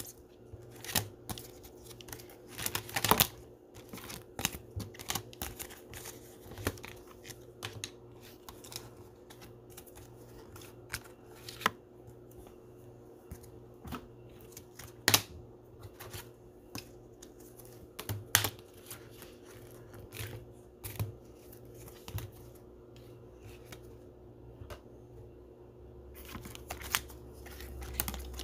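Irregular clicks and taps of rigid plastic top loaders holding trading cards being handled and stacked on a table, over a faint steady hum.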